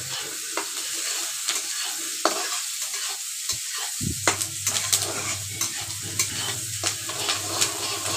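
Chopped onions with dried red chillies and curry leaves sizzling in oil in a metal kadhai over a high flame, with a spatula clicking and scraping against the pan as they are stirred. A low steady hum comes in about four seconds in.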